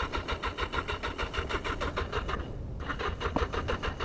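Motorcycle's electric starter cranking the engine over in a steady rapid rhythm without it catching, with a brief pause about two and a half seconds in before cranking resumes.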